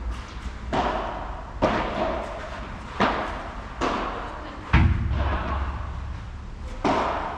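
Padel rally: sharp pops of the ball struck by paddles and bouncing, about one a second and echoing in the large tented hall, with a heavier, deeper thud about two-thirds of the way through.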